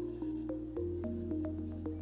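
Background electronic music: quick, evenly spaced melody notes over a held bass note that shifts to a new pitch about a second in.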